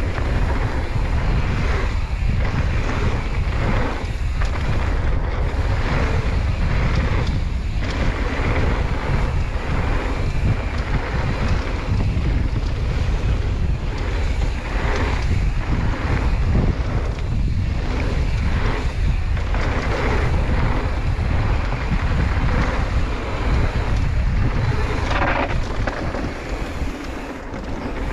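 Wind buffeting the camera microphone while a mountain bike rolls down a flow trail, with steady tyre noise on the dirt surface and frequent irregular knocks and rattles as the bike goes over bumps.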